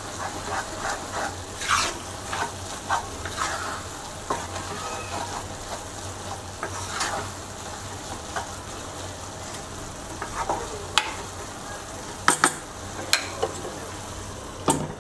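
Wooden spatula stirring and scraping noodles around a non-stick pan, with irregular knocks against the pan over a steady sizzle of the noodles cooking in their last liquid.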